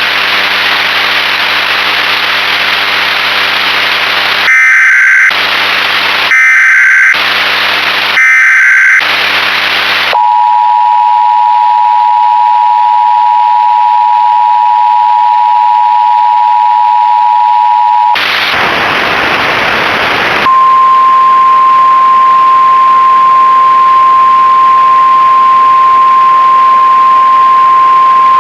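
Emergency Alert System tones under a VHS-style hiss and hum. There are three short bursts of SAME header data, then the two-tone EAS attention signal for about eight seconds. After a short stretch of static comes a single steady NOAA Weather Radio warning tone for about eight seconds.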